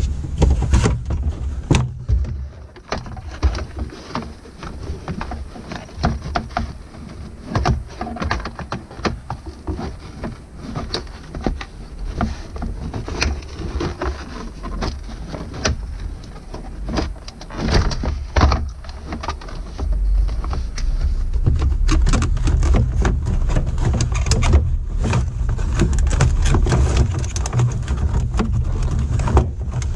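Black plastic center console trim of a Jeep Wrangler TJ being handled and worked down over the shifter and transfer-case levers: scattered plastic knocks, clicks and scrapes. A low rumble comes in during the second half and grows steadier.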